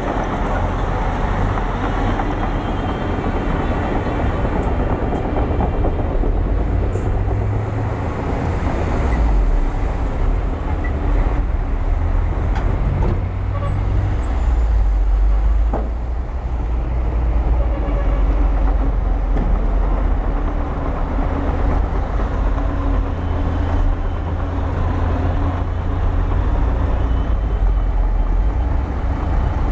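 Bulldozer's diesel engine working under load, a steady deep rumble whose pitch shifts slightly as it works.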